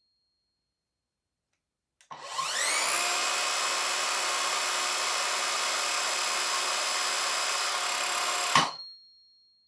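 Evolution R185SMS 18 V cordless sliding mitre saw, with its brushed DC motor, run free without cutting. It spins up with a rising whine about two seconds in and runs steadily for about six seconds. It stops abruptly near the end. It measures about 85 decibels a metre away, reasonably loud.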